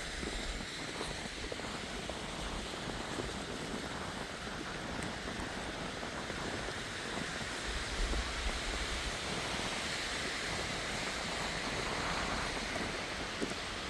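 Wind rushing over the microphone in a snowstorm, a steady noise with low buffeting gusts near the start and about eight seconds in.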